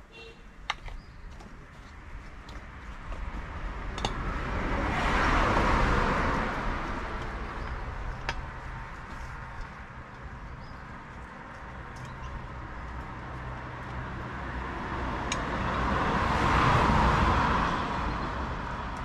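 Two vehicles passing by, each swelling and fading over several seconds, with scattered light clicks of a utensil against a steel bowl.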